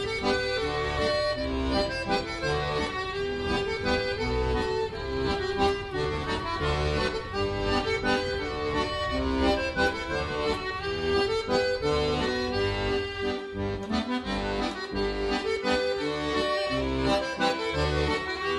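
Background instrumental music with sustained chords over a steady low beat.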